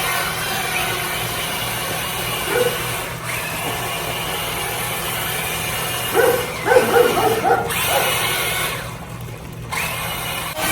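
Electric motor of a Megalodon Storm RC monster truck running with a steady whine, as of a power tool, cutting out briefly near the end.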